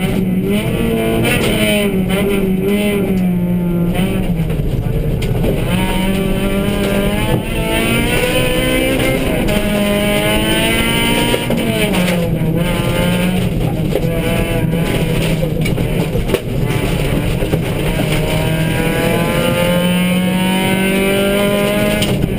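Suzuki Swift rally car's engine at full stage pace, heard from inside the cabin, its revs climbing and dropping again and again through the gears, with two short dips in loudness near the middle and later on. A steady rush of gravel and tyre noise runs underneath.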